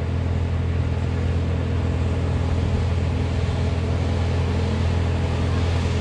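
A mobile crane's heavy engine running steadily as the crane hoists a whole tree on its line. It makes a low, even drone.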